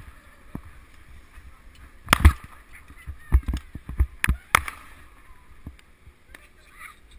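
Wearable-camera microphone rumbling in the wind while sliding through chopped-up powder snow, with sharp knocks and thumps as the rider hits snow clumps: a cluster about two seconds in, then several more in quick succession a second or so later.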